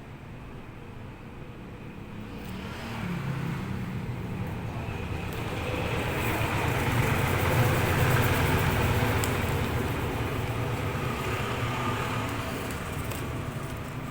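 A motor vehicle engine running with a low hum, growing louder to a peak about eight seconds in, then easing off.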